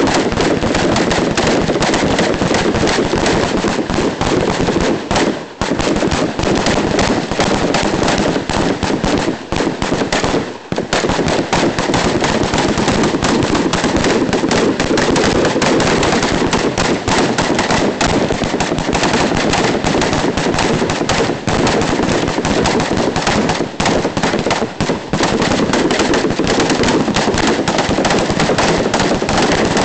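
Several M16 rifles firing semi-automatic at once along a firing line, the shots overlapping into continuous dense gunfire. There are short lulls about five and ten seconds in.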